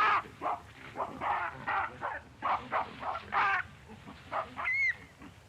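A quick series of short animal calls, about two to three a second, that thin out after about three and a half seconds, then one brief rising-and-falling whistle near the end.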